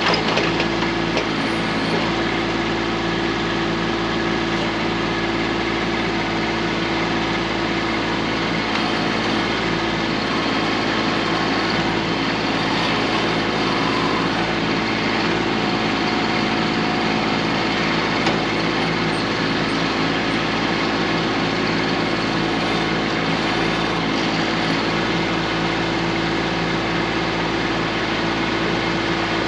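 Kubota B2650 tractor's three-cylinder diesel engine running at a steady speed while it powers the BH77 backhoe.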